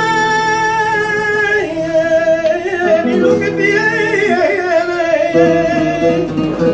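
Male flamenco singer holding long, wavering melismatic notes on a wordless vowel, sliding from pitch to pitch, with flamenco guitar accompaniment underneath.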